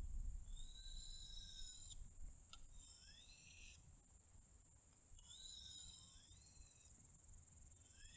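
Steady high-pitched insect chorus, with a bird singing a short whistled phrase every couple of seconds, three times and a fourth starting at the end.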